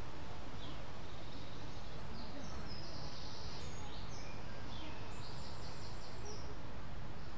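Steady low background rumble of outdoor ambient noise, with a string of short, high-pitched chirps through the middle.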